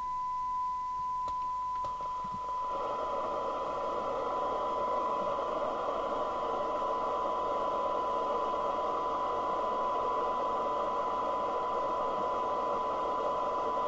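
FM CB receiver reproducing a steady 1 kHz test tone from a signal generator during a SINAD sensitivity check. About three seconds in, a hiss of receiver noise rises under the tone and stays.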